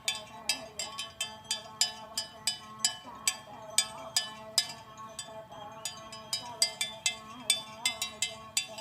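Cowbells on cattle clanking irregularly, about three or four knocks a second, each with a short ring.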